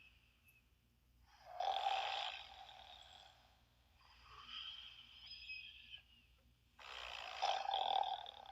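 Snoring sound effect: two loud, rasping snores about five seconds apart, each followed by a softer, higher-pitched breath out.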